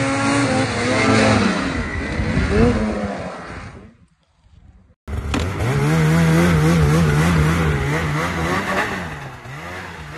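Snowmobile engines revving, the pitch rising and falling with the throttle. The first sled's sound fades out about four seconds in, a second of near silence follows, then another sled starts revving abruptly, its pitch wavering as the rider works it through deep powder.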